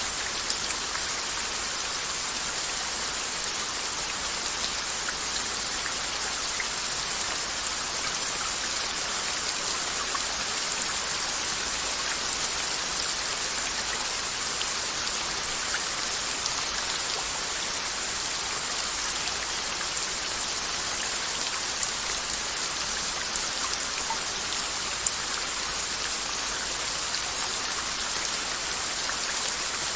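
Steady rain falling, an even hiss with scattered individual drops ticking on a surface.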